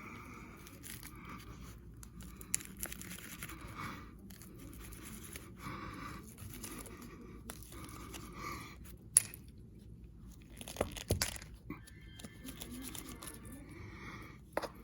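Carpet being worked by hand with installation tools: scraping and rustling of the carpet with scattered sharp clicks, one louder click about nine seconds in.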